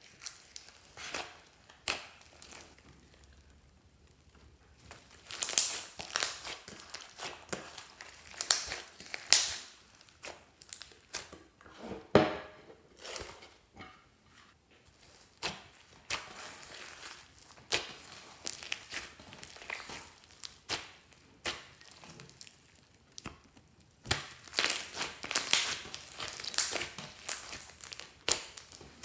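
Slime being squished and kneaded by hand, giving irregular sticky crackles and pops, some louder than others.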